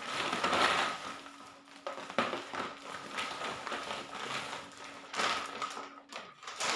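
Large clear plastic bag rustling and crinkling as it is lifted and rummaged through. It is loudest about half a second in, with sharper crackles around two and five seconds in.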